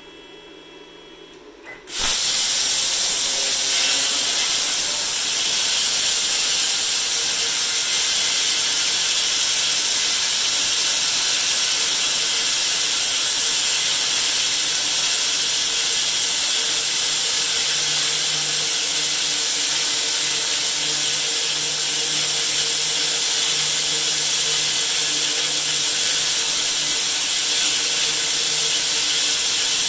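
CNC plasma cutter's arc cutting through metal pipe: a loud, steady hiss that starts abruptly about two seconds in as the torch fires, with a faint low hum joining about halfway through.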